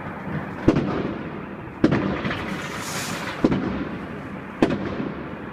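Fireworks going off: four sharp bangs roughly a second apart, each trailing off in an echo, over a steady background of more distant bangs and crackle, with a brief hiss near the middle.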